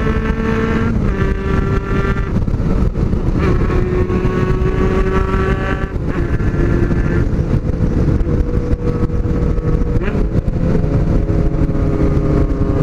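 Honda CBX 750F motorcycle engines running on the road, loud and steady, their exhaust note dropping and rising in pitch a few times as the throttle and gears change.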